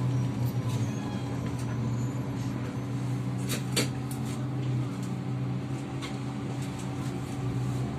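Passenger-cabin noise of a Kyiv-12.03 trolleybus: a steady low hum, with a couple of sharp clicks about three and a half seconds in.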